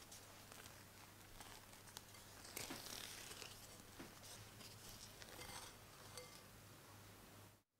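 Faint scraping and folding strokes of a silicone spatula working thick mocha macaron batter against a glass bowl, with small clicks. This is macaronage: the batter is pressed down against the bowl to knock out air until it flows off in a ribbon.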